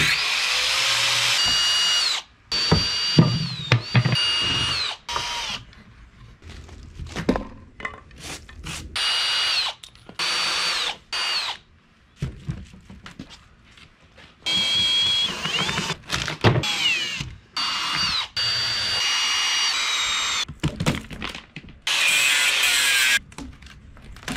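Cordless drill run in repeated short bursts, each speeding up, holding and winding down, as screws are backed out of a plywood handcart being taken apart. Knocks and clatter from the panels come in the gaps.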